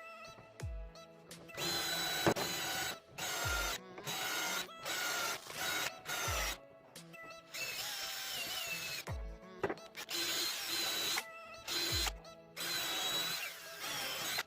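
A power tool running in repeated short bursts of about a second each, its whine shifting in pitch, over background music with a steady low beat.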